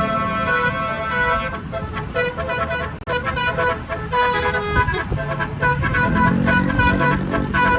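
Basuri telolet multi-tone bus horn playing a melody: held chord-like notes at first, then a quick run of short staccato notes from about a second and a half in, over a low rumble.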